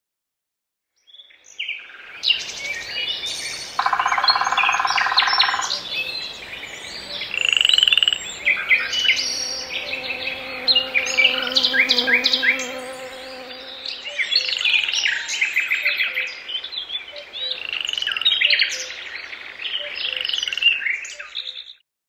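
Birds chirping and twittering in a busy, overlapping chorus of short calls and trills, starting about a second in, with a brief buzzing sound a few seconds in.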